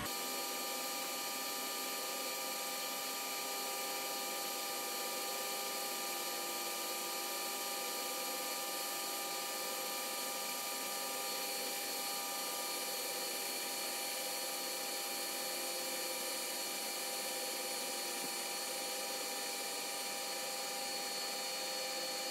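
Metal lathe running under a facing cut, its carbide tool working across a large metal plate: a steady mechanical whine with several constant tones over an even hiss.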